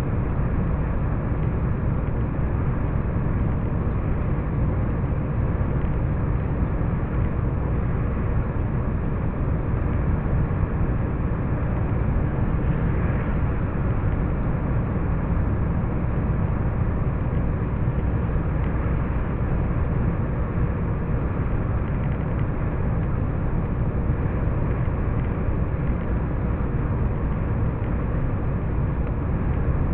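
Steady engine and tyre noise of a vehicle cruising at highway speed, heard from inside the cab through a dashcam. The noise is an even low rumble that does not change, with a faint steady hum over it.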